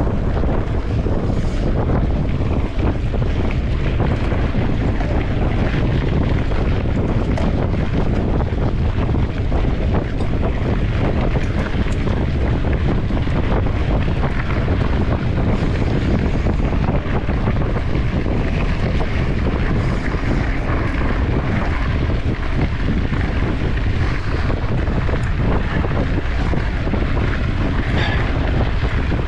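Wind buffeting the microphone of a camera on a mountain bike being raced, a steady rumble, with faint clicks and rattles from the bike and its tyres on a sandy forest trail.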